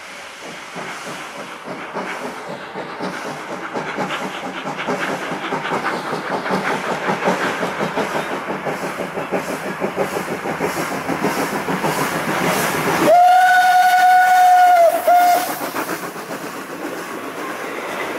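A historic train rolling past, its wheels clicking rhythmically over the rail joints and growing louder as it approaches. About thirteen seconds in, the train gives a loud whistle for two seconds on one steady pitch, with a brief break just before it ends.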